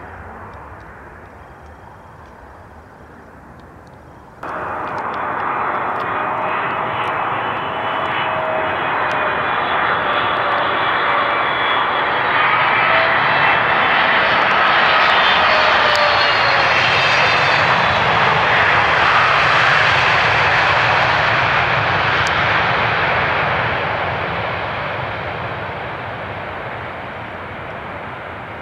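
Jet airliner's engines passing close by. The noise jumps up suddenly about four seconds in, swells to its loudest midway with whining engine tones sliding in pitch, then slowly fades.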